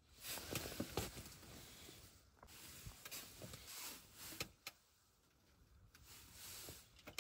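Faint rustling and scraping in irregular bursts, with a few sharp clicks, going quiet for about a second around five seconds in before another short burst.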